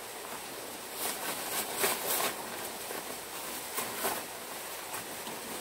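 Rustling and rubbing of an insulated snowboard glove and jacket fabric as the gloves are pulled on, in short bursts about a second in and again near four seconds, over a steady background hiss.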